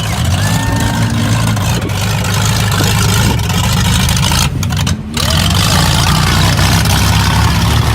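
Several demolition-derby minivans' engines running and revving together in one loud, steady drone, with a brief dip about five seconds in.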